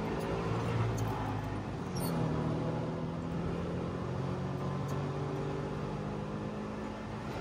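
Trabant 601's two-stroke twin-cylinder engine running under way, heard from inside the cabin; its note shifts and picks up about two seconds in, then holds steady.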